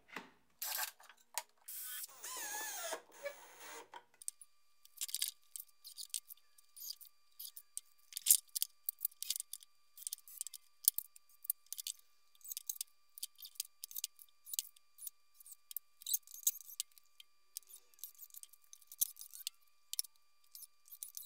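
Cordless drill boring pilot holes into the end of plywood in two short runs, its motor pitch wavering under load. Then a scatter of light clicks and taps with a faint steady high tone.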